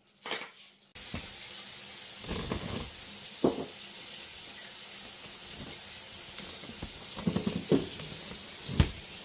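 Steady rushing hiss like water running from a tap, starting abruptly about a second in, with a few short knocks and clatters over it.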